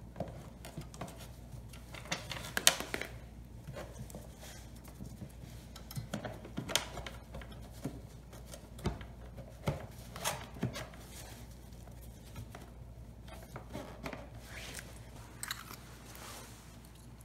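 Handling sounds of gloved hands working on a small generator's fuel valve and hose: scattered clicks and light knocks, the sharpest cluster about two and a half seconds in, with rustling between.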